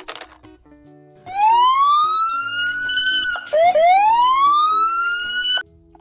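Police car siren sounding two rising wails, each climbing in pitch over about two seconds; the second one cuts off suddenly near the end. A brief clatter comes right at the start.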